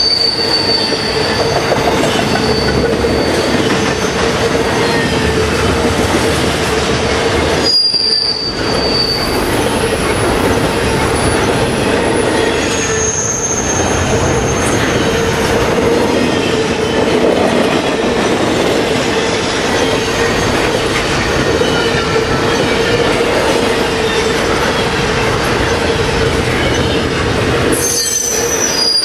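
Double-stack intermodal well cars of a long freight train rolling past close by: a steady, loud rumble and rattle of wheels on rail, with high-pitched wheel squeals that come and go several times.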